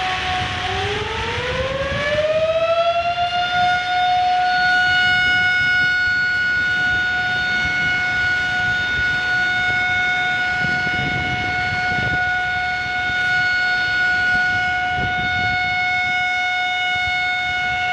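Warning siren at Bisalpur Dam sounding as a spillway gate is opened. It rises in pitch over the first couple of seconds, then holds one steady tone, over the rush of water pouring through the open gate.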